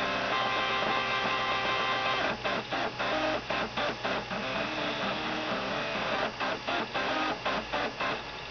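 Three stepper motors of a half-built CNC machine playing a tune, their pitched whine stepping from note to note. About two seconds in, the notes turn short and separated, and the tune stops just before the end.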